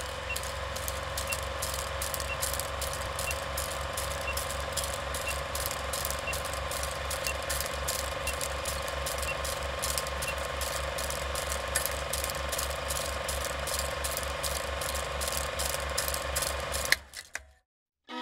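Old film projector sound effect: the rapid, even clatter of film running through the projector over a steady motor hum, with faint pips once a second for about the first ten seconds. It cuts off suddenly near the end.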